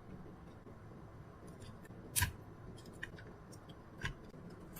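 A few short, sharp snips and clicks from hand tools as the circuit board is being removed from a Dyson V7 battery pack, the loudest about two seconds in, over a quiet background.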